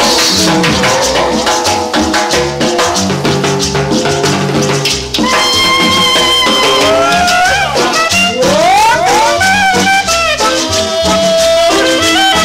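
Cumbia playing loudly in a passage without singing: a steady percussion beat under melodic lines, some of which slide up in pitch about eight seconds in.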